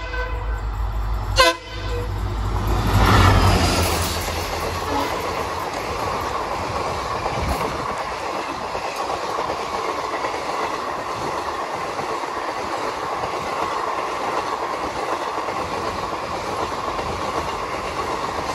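Indian Railways WDP4D diesel-electric locomotive, with its two-stroke EMD engine, giving a short horn toot about a second and a half in, then passing at speed, loudest around three seconds in. After it comes the steady rush of its passenger coaches rolling by.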